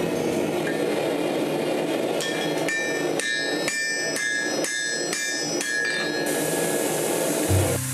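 Blacksmith's hammer striking hot steel on an anvil: a run of about eight ringing blows, roughly two a second, starting about two seconds in, as the axe head is shaped and its eye worked.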